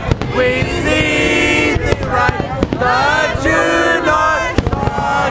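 Aerial fireworks shells bursting, with a few sharp bangs about two seconds in and again near the end, over loud music with long held melodic notes.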